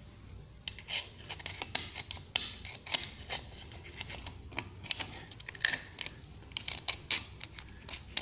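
Metal tip of a hand tool scraping and clicking irregularly against the corroded cylinder walls of an Alfa Romeo GTV engine block. The scraping is over rust and deposits left by water that got into the frozen engine.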